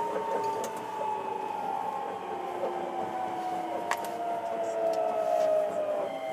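Hankyu 9300 series electric train's traction motors whining, several tones falling slowly in pitch as the train slows. There are a couple of sharp clicks, about a second in and near four seconds in.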